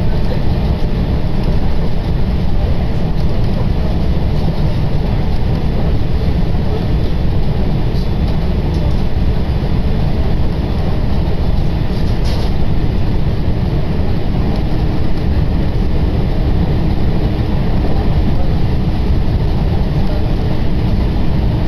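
Inside a Tokaido Line commuter train car, the steady loud rumble of the train running on the rails. A faint steady hum comes in about two-thirds of the way through, and there are a couple of brief high clicks in the middle.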